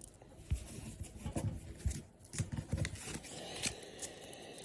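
Trading cards being handled: short scrapes, slides and light taps, with a longer rustling slide near the end.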